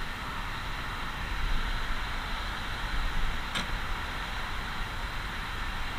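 Steady hiss and rumble of road traffic passing on an adjacent road, swelling slightly now and then, with a faint click about three and a half seconds in.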